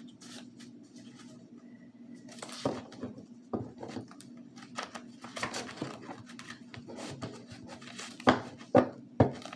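Tarot cards being handled on a table: soft rustling and scattered light taps, with three sharper taps near the end.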